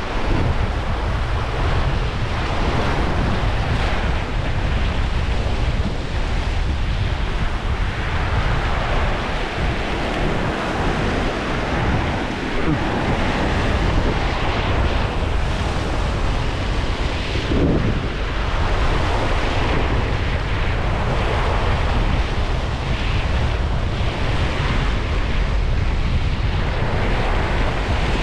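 Strong wind buffeting the microphone: a loud, steady rush with a deep rumble underneath.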